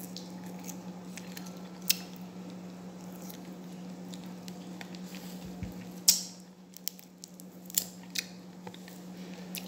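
A person biting and chewing fruit, with a few sharp clicks and crunches scattered through, over a steady low hum.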